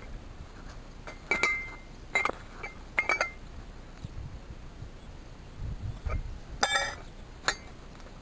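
Metal pump parts and a tool clinking together about five times, in short sharp ringing chinks, during reassembly of a Malysh vibration pump.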